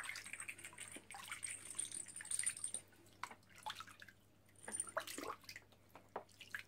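Shallow bath water splashing and dripping in a plastic tub as hands scoop it over a small wet puppy, in small irregular splashes.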